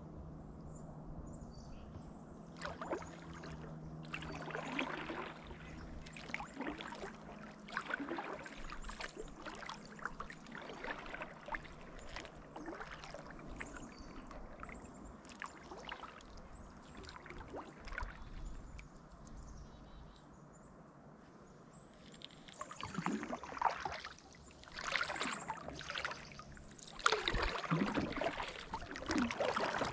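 Kayak paddle strokes: the blade dipping and pulling through the water with splashes and drips, alternating roughly every second or so. The strokes turn louder in the last several seconds.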